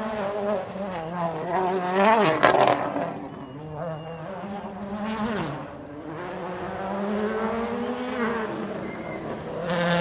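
A WRC rally car's turbocharged four-cylinder engine accelerating hard on a stage. The pitch climbs and drops sharply at each gear change, about two seconds in, again after five seconds, and once more after eight. It fades a little in the middle and comes back louder near the end.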